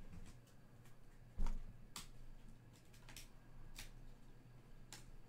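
Hands handling and flipping through a stack of soccer trading cards: light card-on-card clicks about once a second, with a soft thump about one and a half seconds in.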